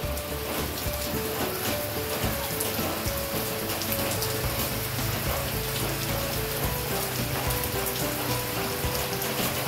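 Steady hiss of rain falling, with soft background music playing short melodic notes over it.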